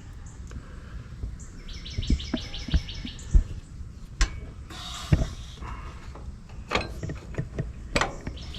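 Scattered knocks and clinks, the loudest about three seconds in. Under them a bird gives a rapid, even trill from about two to three seconds in, and a short hiss comes about five seconds in.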